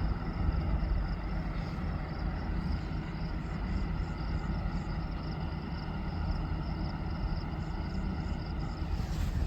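Kartar combine harvester running with a steady mechanical drone, its engine and threshing machinery at constant speed.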